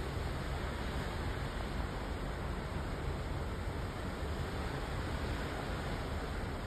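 Steady rush of wind and water with a low rumble underneath, heard from the open deck of a ferry under way.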